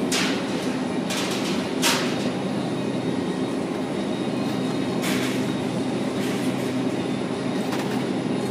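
Supermarket background noise: a steady drone with a low hum under it, broken by a few brief rustles about a second in, near two seconds and near five seconds.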